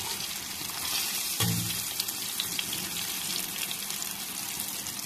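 Vegetable pakoras deep-frying in hot oil: a steady sizzling hiss with fine crackling.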